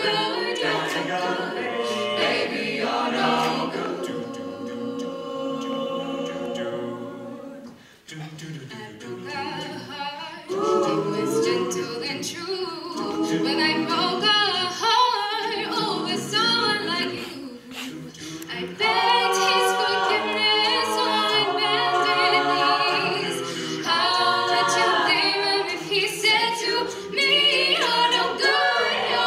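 Mixed-voice a cappella group singing live, a female lead voice over sung backing harmonies with no instruments. The sound thins and drops in level about 8 seconds in, then swells back to the full group about 19 seconds in.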